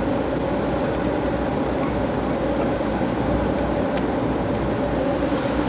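Steady running noise of a moving train heard from aboard: wheels rolling on the rails, with a steady hum beneath.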